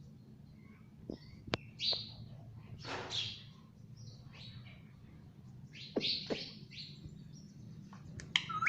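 Indian ringneck parrot giving short, scattered chirps with pauses between, along with a few sharp clicks about a second in.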